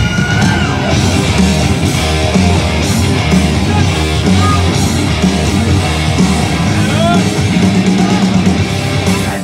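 Loud heavy metal music.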